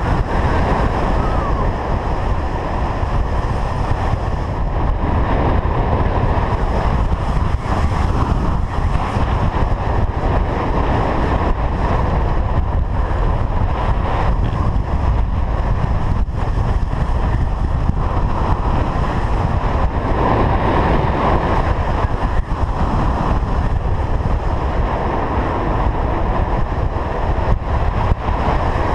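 Strong wind buffeting the camera microphone: a loud, steady rushing that swells and eases a little without ever stopping.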